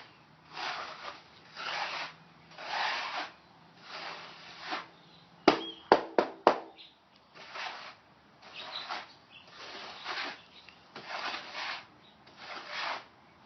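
A trowel scraping and spreading mixed grout across a board in repeated strokes about once a second. A cluster of four sharp knocks comes about halfway through.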